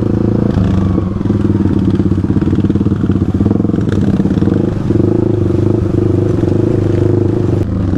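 Yamaha WR155R's single-cylinder four-stroke engine running under way at fairly steady revs, with small rises and dips in throttle.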